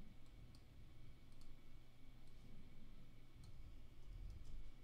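Several faint computer mouse clicks, scattered irregularly, over a low steady hum.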